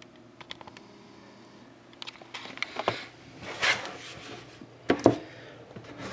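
Handling noises at a table: a few light clicks, a short rustling scrape, then two sharp knocks near the end.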